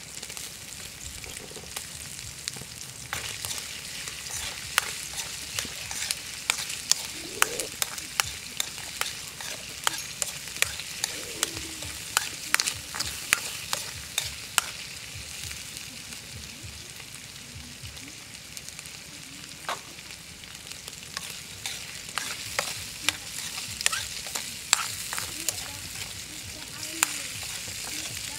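Eel pieces sizzling in a metal wok over a wood fire, a steady frying hiss broken by frequent sharp clicks and scrapes as the food is stirred against the pan.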